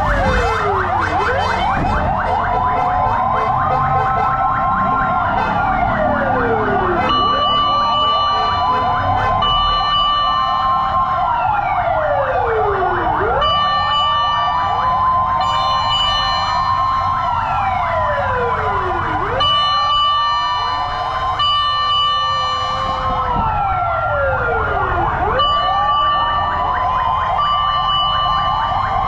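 Several fire truck sirens wailing at once, each rising and falling in slow sweeps about every six seconds and out of step with one another, with a steady tone cutting in and out among them.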